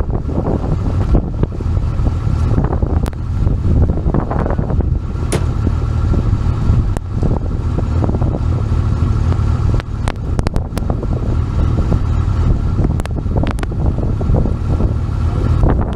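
Steady low rumble of wind buffeting the microphone, mixed with an off-road side-by-side's engine running, with a few brief clicks.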